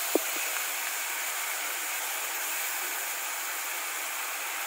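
Steady sizzling hiss of potatoes and onions frying in oil in an aluminium pressure cooker, with one short knock just after the start.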